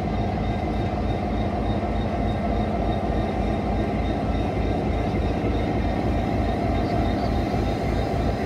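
Canadian Pacific diesel locomotive rolling past close by, its engine running with a steady low rumble and a fast, even throb.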